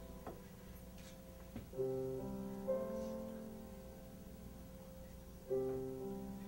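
Piano playing slow chords, each left to ring and fade; a new chord is struck about two seconds in and again near the end.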